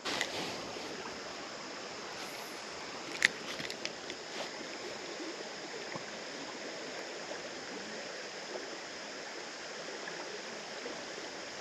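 Creek water running steadily over a shallow riffle, an even rush, with a single sharp click about three seconds in and a few faint ticks after it.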